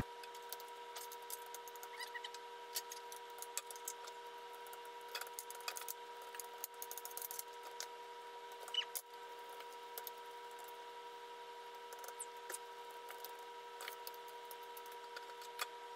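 Faint, irregular soft clicks and wet ticks of fingers pulling apart and trimming cooked pork shoulder, over a steady faint electrical hum.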